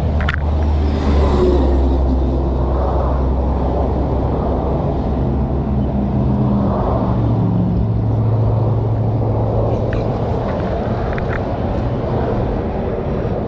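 Steady rumble of highway traffic passing at speed, swelling and easing as vehicles go by.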